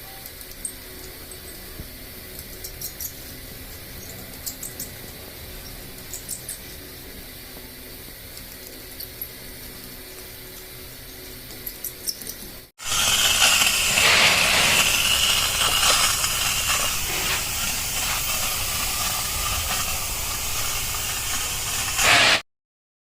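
Low background with scattered faint clicks, then a loud steady hiss of compressed air that starts abruptly about halfway through, runs for about ten seconds and cuts off suddenly.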